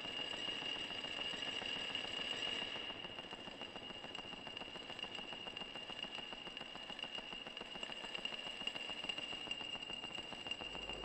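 Quiet experimental electronic music: a steady high whine over a dense crackling, rattling noise texture. The texture thins out about three seconds in, and a deep low drone comes in near the end.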